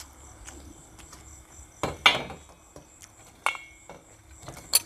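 Eating utensils clinking against ceramic bowls and dishes: a quick cluster of clinks about two seconds in (the loudest), another about a second and a half later with a brief ring, and one more near the end. Crickets chirr steadily in the background.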